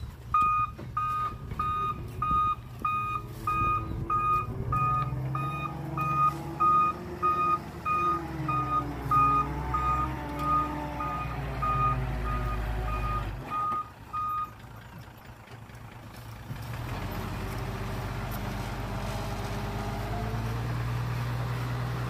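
Hyundai dump truck's reversing alarm beeping at an even pace, about one and a half beeps a second, over its diesel engine revving up and down as it backs. The beeping stops about two-thirds of the way through, and the engine settles into a steady run.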